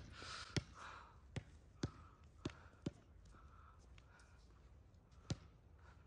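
Quiet outdoor background broken by a handful of sharp, irregular taps, five in the first three seconds and a louder one about five seconds in.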